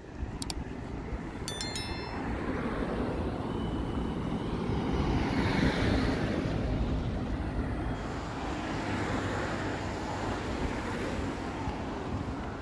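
Road traffic on a city street, with a vehicle passing close by, loudest about six seconds in, and another fainter pass near the end.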